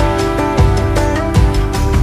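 Music with a steady beat and held instrument tones.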